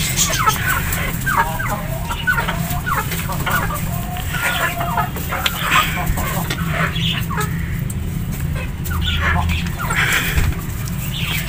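Chickens clucking, a scattered run of short calls, over a steady low hum.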